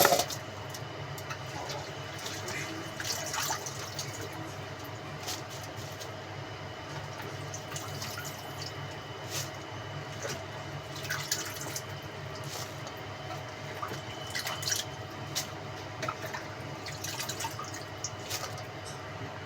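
Water dripping and splashing in small scattered drops over a steady hum, with one sharp click at the very start.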